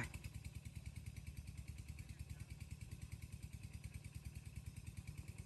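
Faint, steady putter of a small engine running, with an even pulse.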